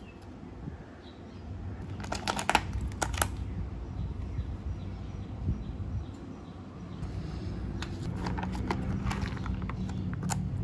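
Plastic packaging of a self-heating meal pack crinkling as it is handled, in two bursts of rustling: about two seconds in and again near the end. A steady low hum lies underneath.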